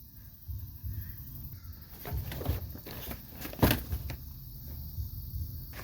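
Scattered knocks and thumps of a scuffle, over a low rumble, the loudest about three and a half seconds in.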